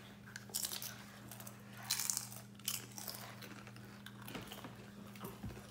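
Tortilla chips crunching and a chip bag crinkling in a few short, crackly bursts, over a steady low electrical hum.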